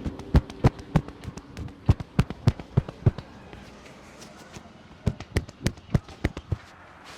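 Rapid percussive head-massage strokes: the barber's hands slapping or clapping on the scalp in three quick runs of sharp claps, about three a second, with short pauses between runs.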